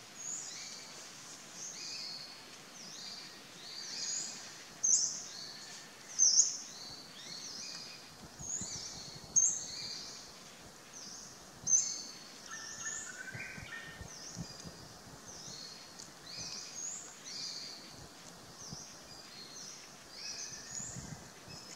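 Forest birds chirping: many short, high notes overlapping without a break, with a handful of louder chirps standing out.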